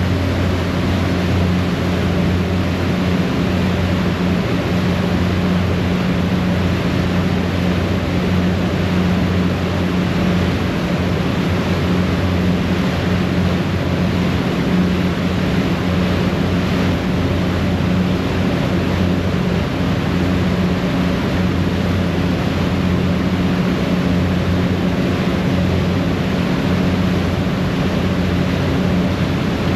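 A passenger ferry under way: its engines running in a steady low drone over the rush of the churning wake and wind at the stern.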